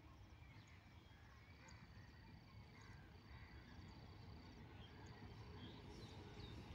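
Near silence: faint outdoor ambience with a thin, high steady tone and a few small high chirps, while a low rumble slowly grows toward the end as a train approaches.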